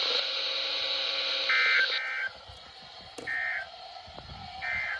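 Emergency Alert System data bursts: four short bursts of warbling two-tone digital code, the first two back to back, then two more about a second apart. This is the end-of-message code closing a broadcast flood warning. Radio hiss is heard during the first two seconds.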